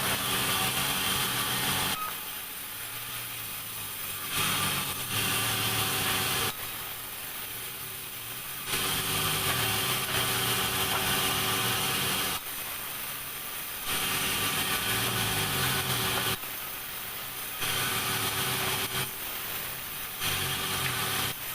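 Sawmill saw running, alternating every few seconds between louder stretches with a dense hiss and high whine as it cuts through timber and quieter stretches of machine hum, with abrupt changes between them.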